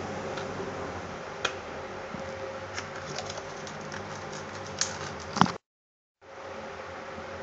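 Scattered small clicks and taps over a steady hum and hiss, the loudest about five seconds in, from hands working on a laptop during a memory upgrade. Just after, the sound drops out completely for about half a second.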